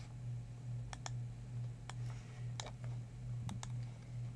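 Computer mouse button clicks, about six scattered over a few seconds, some in quick pairs, over a steady low hum.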